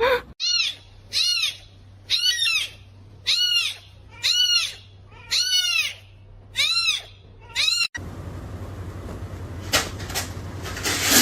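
A kitten meowing over and over, high rise-and-fall meows about once a second, some eight in a row. About eight seconds in they stop abruptly, giving way to a steady hiss with a short sharp sound.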